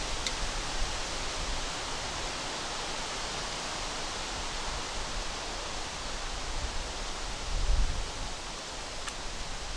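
Steady wind rushing through the surroundings, with a gust rumbling against the microphone near the end.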